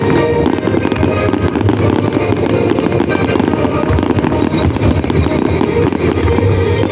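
Fireworks bursting in quick, continuous succession, with music playing over them.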